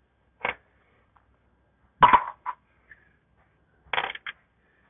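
Metal tools clinking against each other: a few short, sharp metallic clinks in three small groups, one about half a second in, two near two seconds and two near four seconds.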